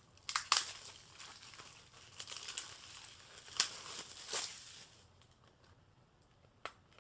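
Plastic shrink-wrap being torn and peeled off a Blu-ray case, crinkling and crackling in irregular bursts, loudest about half a second in and again near the middle.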